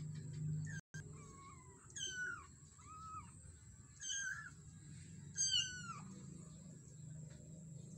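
Young kittens mewing: a string of about five high, thin meows, each falling in pitch, the loudest about five and a half seconds in.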